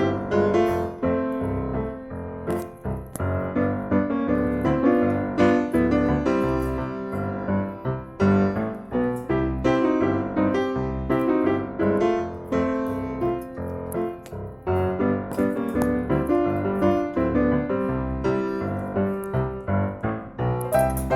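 Background piano music, notes played continuously throughout.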